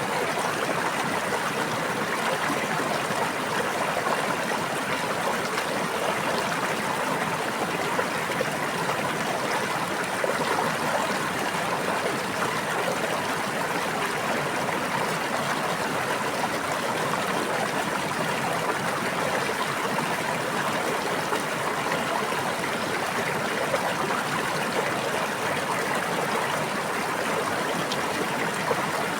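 A brook babbling and rushing steadily over stones, an even, unbroken sound of running water.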